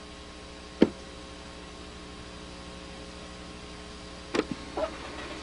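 Steady electrical mains hum, broken by a sharp click about a second in and a few softer clicks near the end.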